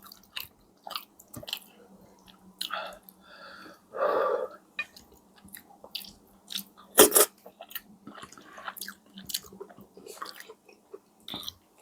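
Close-miked chewing of a meal of steamed fish, okra, crackers and bammy: many small wet clicks and lip smacks, with one louder sharp crunch about seven seconds in.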